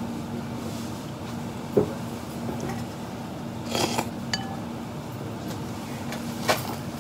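Ramen being eaten: chopsticks and a spoon clicking against the bowl a few times, with a short slurp from the soup spoon about four seconds in, over a steady low hum.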